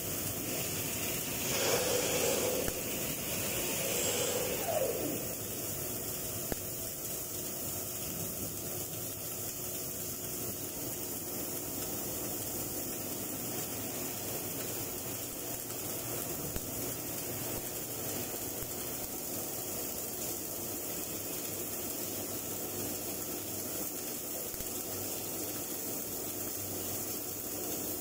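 Electric welding arc crackling and hissing steadily while an overhead butt weld is run, with a short falling squeal about five seconds in.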